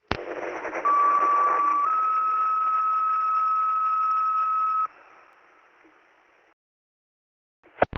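Fire dispatch two-tone page over a radio: a squelch click, then one steady tone for about a second, followed by a slightly higher tone held for about three seconds, all over radio hiss. The hiss dies away, and a second click near the end is the radio keying up for the dispatcher's voice.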